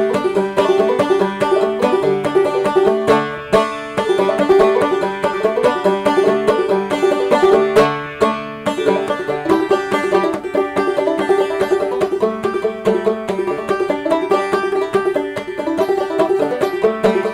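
Gold Tone banjo played clawhammer (frailing) style: a bright tune of plucked notes over a steady, driving rhythm with a dense down-stroke pattern.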